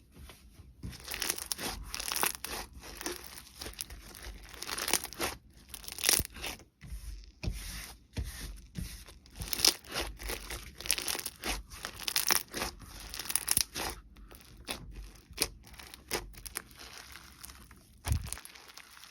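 Hands stretching, pressing and squishing clay-mixed slime: an irregular run of crackly, tearing bursts with short pauses between them, and a dull low knock near the end.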